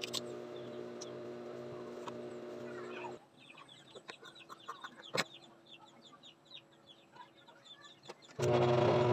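JUKI industrial sewing machine humming steadily, cutting out about three seconds in. In the quieter gap, chickens chirp with many short high calls and there is one sharp click. Near the end the machine starts stitching again, louder.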